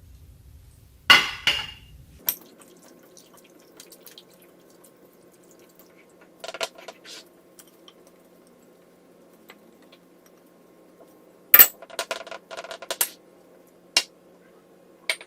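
Kitchen dishes and utensils clinking and knocking. There are a couple of sharp strikes about a second in, a few more in the middle, and a quick run of clinks near the end.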